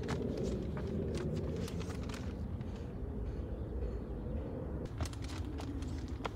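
Footsteps on pavement, irregular sharp ticks over a steady low outdoor rumble; a steady hum in the background stops about five seconds in.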